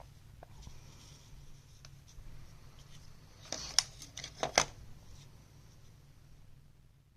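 A replacement laptop CPU fan being handled and pressed against its heatsink while he tries to line up the screw holes. It gives a quick cluster of light clicks and taps about halfway through, over a faint hiss.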